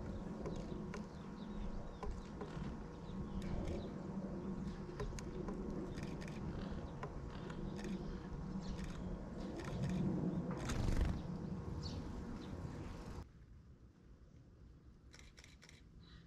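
Outdoor ambience: a low, uneven rumble with a faint steady hum and scattered short ticks and chirps. The sound drops sharply quieter about thirteen seconds in, leaving only a few ticks.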